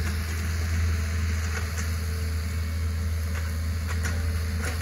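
Hitachi ZX48U mini excavator's diesel engine running steadily while the bucket works brush out of a ditch, with a few faint clicks.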